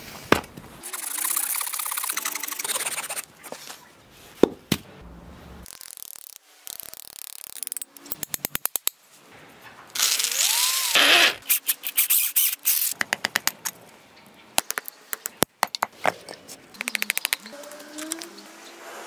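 A string of hand woodworking sounds: wood being sawn in quick strokes near the start, then sharp knocks of wood, several quick runs of clicking, and a short squeal that rises and falls in pitch about halfway through.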